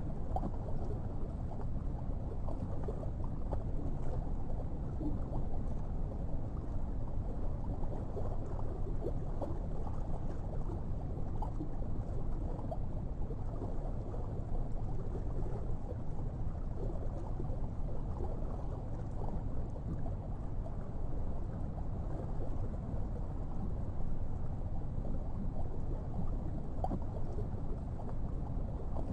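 Underwater ambience: a steady low rumble of water with faint scattered ticks, gurgles and a few brief faint squeaks.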